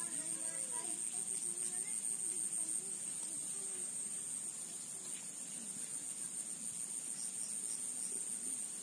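Steady, high-pitched, unbroken drone of insects, with faint voices in the background.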